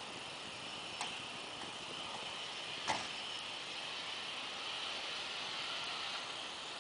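Distant steady hiss of a Cessna Citation Mustang's twin Pratt & Whitney PW615F turbofans on the takeoff roll. Two sharp clicks cut in, about a second in and about three seconds in, the second louder.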